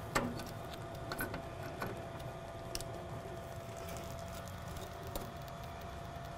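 A sharp click right at the start, then a few lighter clicks and taps, from the laminator's slitter head being handled on its bar. A steady faint hum runs underneath.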